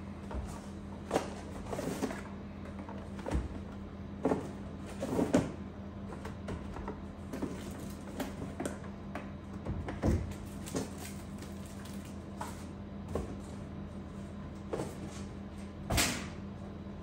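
Cardboard whisky gift boxes being lifted out of a cardboard shipping carton and set down one after another on a wooden counter: scuffs and rustles of cardboard with irregular knocks, the loudest near the end. A steady low hum runs underneath.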